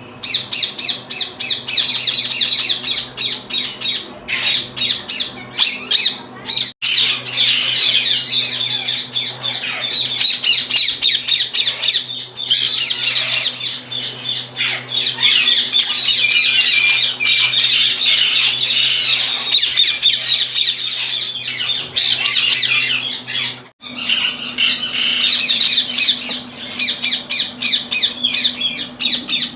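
A flock of Indian ringneck parakeets screeching together in a dense, unbroken stream of rapid shrill calls, several a second, breaking off sharply twice. A faint steady low hum runs beneath.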